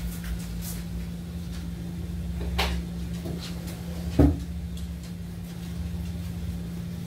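Puppies moving about in a plastic tub: light clatters and one sharper knock about four seconds in, over a steady low hum.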